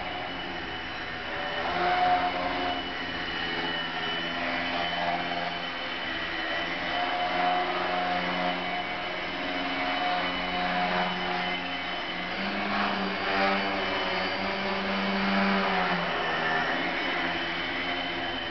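Small electric motor and propeller of an indoor RC aerobatic plane, a buzzing drone whose pitch and loudness rise and fall with the throttle as it hovers and manoeuvres, over a steady high whine.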